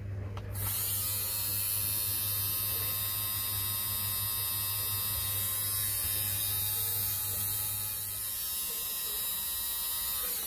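Xiaomi Mijia electric lint remover switched on about half a second in, its small motor and spinning blades running with a steady whine and hiss.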